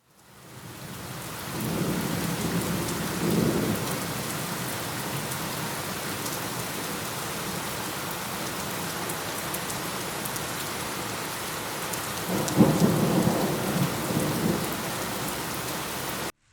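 Heavy rain pouring steadily, with two low rolls of thunder: one a couple of seconds in and a louder one about twelve seconds in. The rain fades in at the start and cuts off suddenly near the end.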